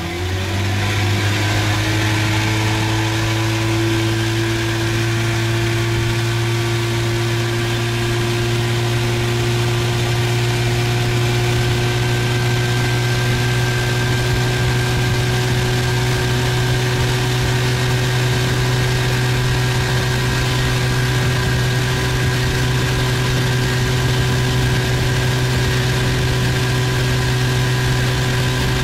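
A boat's outboard motor running under way at a steady cruising speed, its note rising slightly over the first few seconds and then holding even. Underneath is a steady rush of water and wind.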